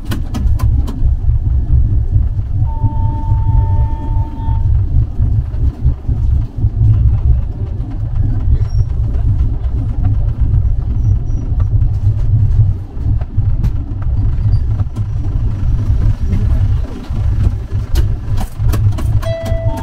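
Express passenger train running: a steady low rumble with scattered rattles and clicks from the wheels and coach, and a brief steady tone about three seconds in.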